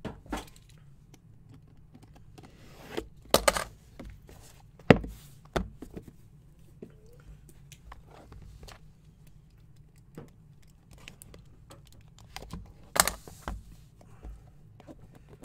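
Cardboard trading-card box being handled and opened by hand: scattered knocks, scrapes and rustles of card packaging, with louder knocks about three and a half and five seconds in and again about thirteen seconds in.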